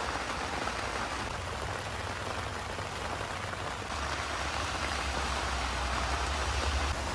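Steady rain falling on a rooftop tent's fabric, heard from inside the tent. A low rumble sits underneath and grows stronger from about four seconds in.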